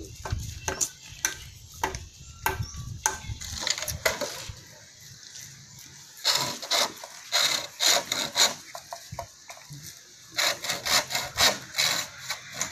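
Hand saw cutting through a green bamboo pole in quick back-and-forth strokes, about three to four a second, coming in spells with short pauses between.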